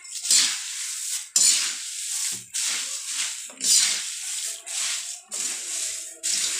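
Spatula stirring and tossing dry puffed rice in a large aluminium kadai, mixing it into the tempering: a dry rustling scrape with each stroke, about one stroke a second.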